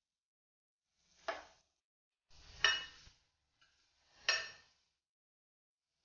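Metal spatula clinking against an amber glass frying pan while stirring chopped onions: three clinks about a second and a half apart, each ringing briefly.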